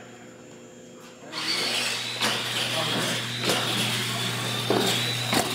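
Radio-controlled monster trucks launching about a second in and racing: a steady high whine from their motors and drivetrains, with several sharp knocks from the trucks.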